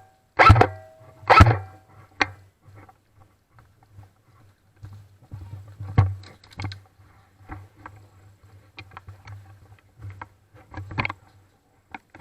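Airsoft electric rifle firing two short bursts about a second apart, followed by scattered faint clicks and taps, most likely distant shots and movement.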